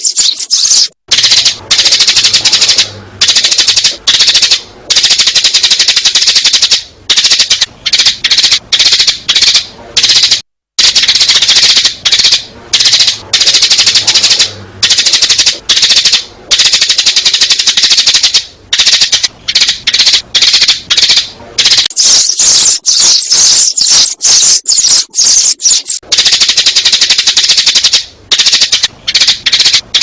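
Sparrows chirping loudly and rapidly in a dense run of high, sharp chirps, broken by a few brief pauses. It is a sparrow lure call, a recording played to draw sparrows into a trap.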